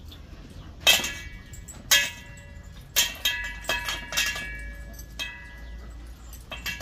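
Hard metallic clanks about once a second, each ringing on briefly in clear bell-like tones, the first three loudest.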